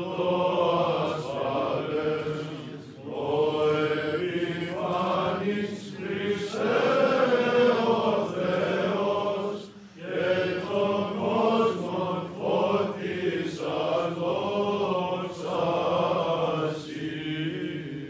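Men's voices chanting a Byzantine Orthodox hymn together in phrases over a steady low held drone note (the ison). There are short breaks between phrases and a brief pause about ten seconds in.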